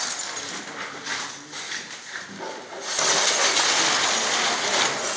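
Rubble and broken glass being cleared by hand: scattered clinks and knocks, then a louder stretch of scraping and rattling debris about three seconds in.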